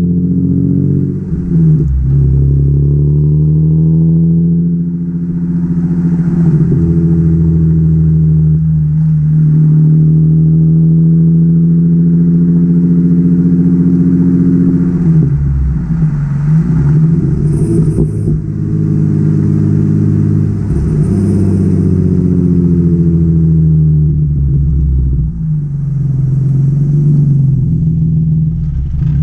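Nissan 350Z's 3.5-litre V6 exhaust, almost straight-piped with test pipes in place of the catalytic converters, revving up and down several times. It is held at steady revs for a long stretch in the middle, and the note is much louder than stock.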